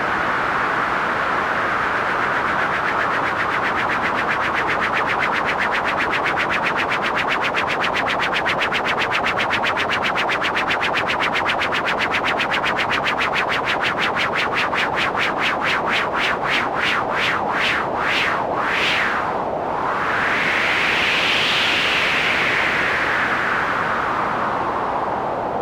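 Korg iMS-20 synthesizer noise patch being shaped into a wind effect: a filtered hiss with a fast flutter that gradually slows, then a slow whoosh that rises and falls in pitch near the end.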